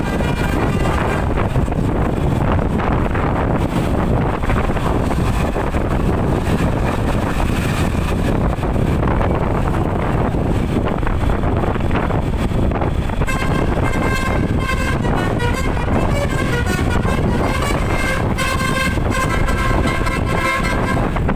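A bus's telolet (basuri) multi-tone musical horn plays a tune of shifting notes, starting about two-thirds of the way in, over a steady rumble of wind and road noise.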